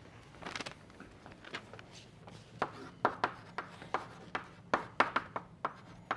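Chalk writing on a blackboard: a quick irregular string of sharp taps and short scratchy strokes, thickest from about halfway through.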